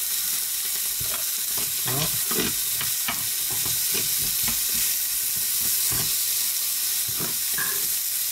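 Steak and onions sizzling steadily in a hot ridged grill pan, with a utensil clicking and scraping against the pan as the onions are stirred.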